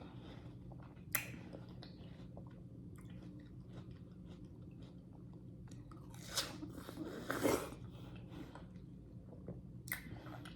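Close-up chewing and biting of juicy yellow watermelon, with a few louder wet bites or slurps about a second in, twice around six to seven seconds, and once near the end, over a steady low hum.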